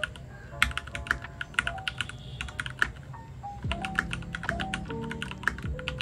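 Typing on a Keychron K2 mechanical keyboard: a fast, irregular run of key clacks that starts about half a second in, with background music.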